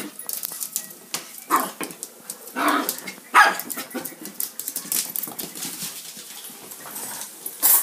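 Small dog barking a few short times in the first half, with more barking near the end.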